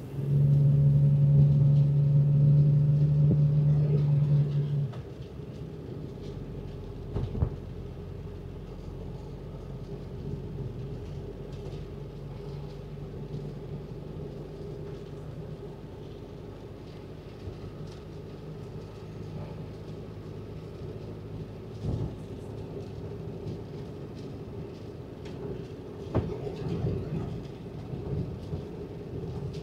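Mitsubishi Delica D:5 heard from inside the cabin while driving on a wet road: a steady low rumble of engine and tyres. For the first five seconds a loud steady hum sits on top, then stops. A few faint knocks come through later.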